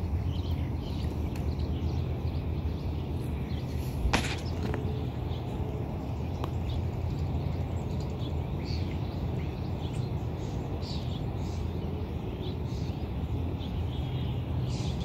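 Birds chirping faintly over a steady low rumble, with one sharp knock about four seconds in.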